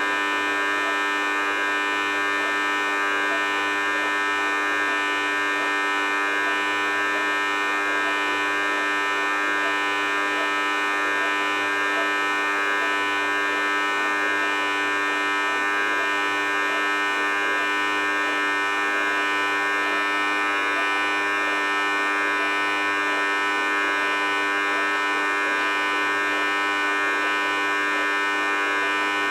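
Thor WP5G benchtop dishwasher making a terrible noise, a steady, unbroken buzzing drone with a whine above it. This is the abnormal noise the machine makes for about three minutes of every run, though it is only eight months old.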